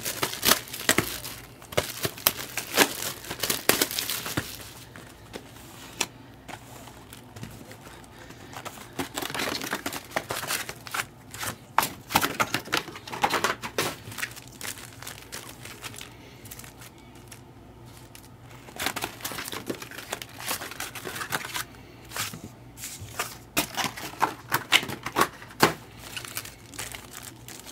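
Plastic trading-card packaging being crinkled and torn open by hand, in several bouts of crackling with quieter pauses between them.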